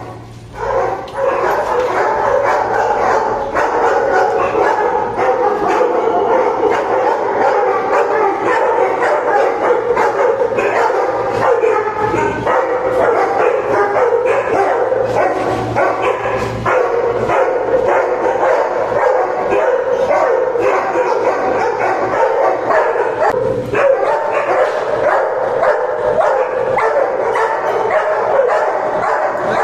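Many kennel dogs barking at once in their wire cages, a loud, unbroken din of overlapping barks.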